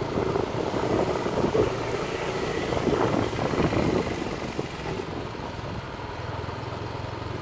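Road traffic: a motor vehicle running close by, louder for the first four seconds or so and then easing off.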